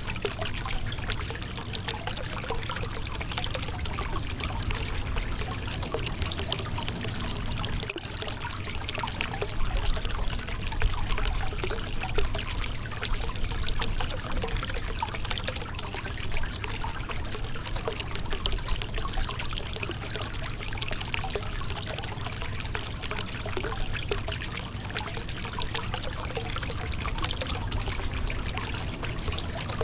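Shallow river water running and splashing over a rocky bed: a steady rush with constant small trickles and splashes.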